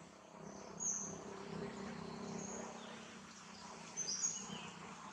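Outdoor ambience with a few short, high bird chirps: one about a second in, another mid-way, and a quick cluster around four seconds in, over a low steady hum.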